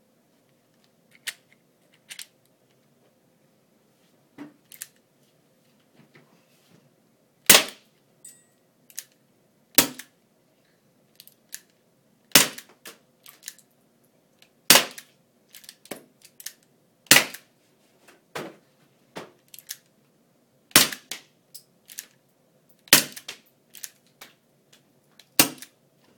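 UHC gas-powered airsoft revolver firing about eight sharp single shots, roughly one every two and a half seconds, with quieter clicks between the shots.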